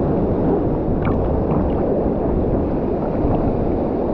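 Waterfall and its current rushing into a swimming pool: a loud, steady roar of water.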